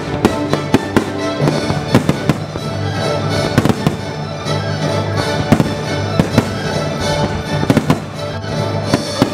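A fireworks display with shells and mines bursting in quick succession, several sharp bangs a second, over patriotic music from American composers.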